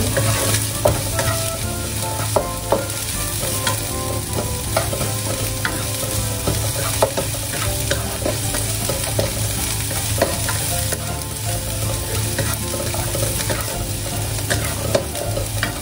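Oil sizzling as shallots, ginger and the white parts of spring onion are stir-fried in a nonstick wok, with a spatula scraping and knocking against the pan many times.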